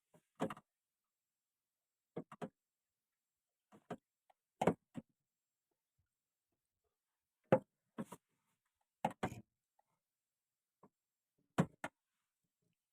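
A series of short, sharp knocks and clicks at irregular gaps of one to two seconds, some in quick pairs, with silence between them.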